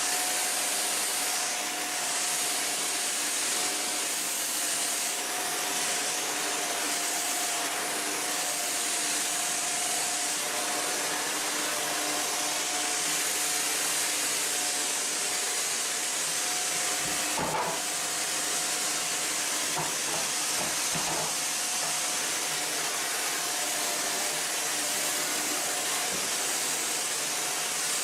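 Shark NZ850UKT upright vacuum cleaner running steadily, a constant rushing hiss with a steady motor whine. A brief knock or clatter comes a little past halfway.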